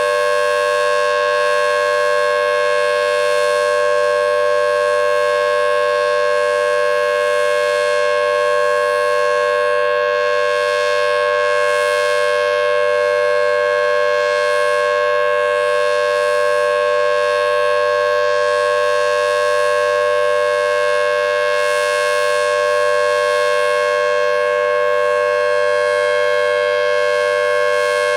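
Federal Signal Thunderbolt 1000T outdoor warning siren sounding a steady full-alert tone. The pitch and level hold constant because its rotator is not working, leaving the horn fixed and facing the listener.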